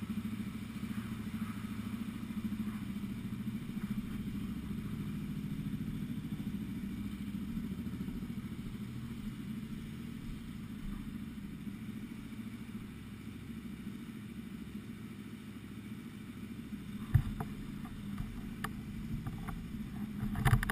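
Yamaha WR125X's single-cylinder four-stroke engine with an aftermarket Arrow exhaust idling steadily. A sharp knock comes near the end, followed by a few clicks.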